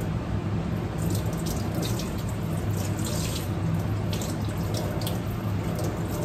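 Rice being washed in a rice cooker's metal inner pot: a hand swishes the grains in water, and the rinse water splashes out into a stainless steel sink in irregular pours from about a second in.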